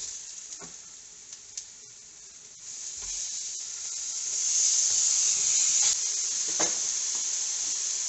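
Salmon fillets sizzling in a George Foreman electric skillet as they are turned over with a spatula. The sizzle swells from about three seconds in as the fillets are flipped onto the hot surface, with a few light taps of the spatula against the pan.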